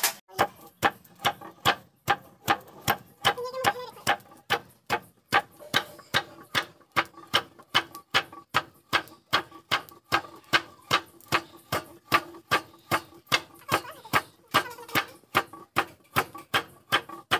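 A wooden dheki, a foot-operated rice-pounding lever, knocking in a steady rhythm of about two sharp knocks a second as roasted rice is pounded in its pit.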